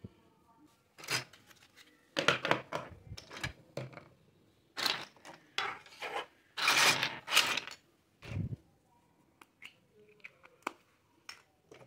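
Plastic toy kitchen pieces clattering and knocking together as they are handled and set down on a table, in dense runs of clicks through the middle, then a few scattered single clicks near the end.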